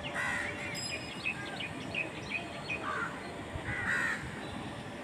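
Crows cawing: three harsh caws, one at the start, one about three seconds in and one about four seconds in, with short chirps of smaller birds in between.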